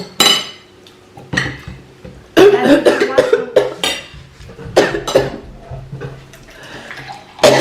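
A person coughing hard in several separate fits, as if choking on food, with clinks of dishes and cutlery between them.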